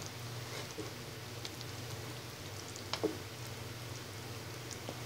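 Hilsa korma sauce simmering quietly in a pan with scattered small pops, while a wooden spatula turns the fish pieces; one sharper knock of the spatula about three seconds in.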